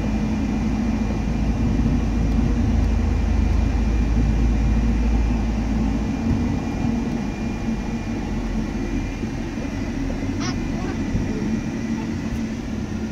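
Steady low engine and road rumble of a bus heard from inside the cabin while it drives along a highway. The rumble is heavier for the first six seconds, then lighter, with a short high-pitched sound about ten seconds in.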